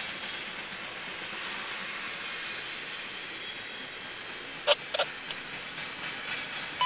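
Garbage train of container flatcars rolling past with a steady hiss of steel wheels on rail. Two sharp clicks come about two-thirds of the way through.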